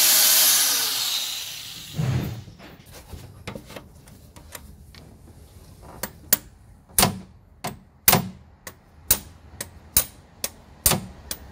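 Hammer tapping a punch against a timing chain link pin to drive it out, the steel block on the far side ringing with each blow: about a dozen sharp metallic taps, roughly two a second, through the second half. Before them a loud whirring noise dies away over the first two seconds.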